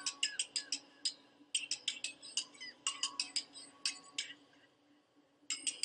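Quick run of light ticks and clinks, about five or six a second, some with a brief chime, over a faint steady hum. The ticks stop for about a second near the end and then start again.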